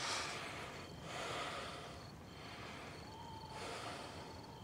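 A person breathing heavily: about three slow, audible breaths a second or so apart.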